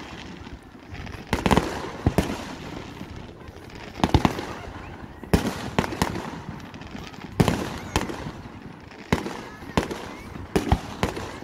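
Aerial firework shells bursting in a string of about ten sharp bangs, unevenly spaced roughly a second or two apart.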